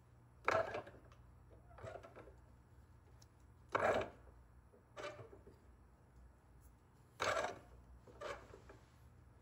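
Eyelets being pressed into a Kydex sheath: three sharp clunks a few seconds apart, each followed about a second later by a softer click.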